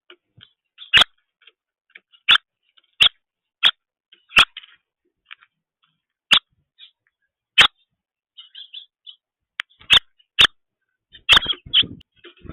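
Small birds: a run of sharp, irregular ticks, about ten in all, with faint high chirps between them and a denser cluster near the end.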